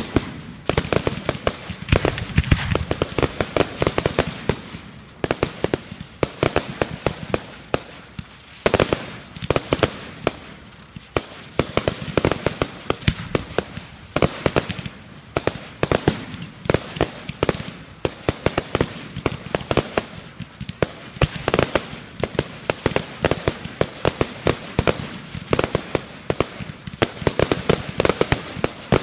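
Fireworks going off in a dense, continuous barrage of rapid sharp cracks and bangs, many each second, with louder reports standing out now and then.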